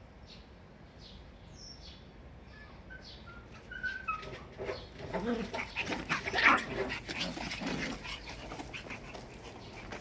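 Shiba Inu puppies play-fighting, with a burst of barks and whimpering yelps starting about four seconds in and loudest in the middle.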